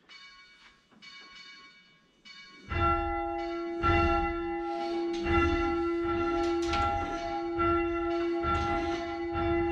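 Tower church bell being rung up by its rope, the number two of a six-bell ring: faint strikes at first, then from about three seconds in louder, ringing strikes that follow one another as the bell swings higher, with a low rumble underneath.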